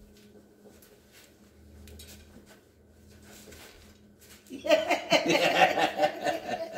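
A faint steady hum in a quiet room, then a man and a woman break into loud laughter about four and a half seconds in.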